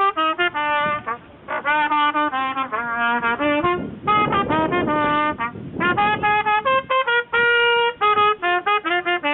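Brass music led by a trumpet, playing a quick melody of short notes with a few longer held notes.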